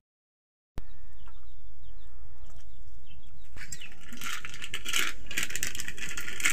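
A brief gap of dead silence, then faint bird chirps over a low hum. From about halfway there is a run of quick clicks and rattles: a knife cutting small chillies over a steel bowl, with pieces dropping in.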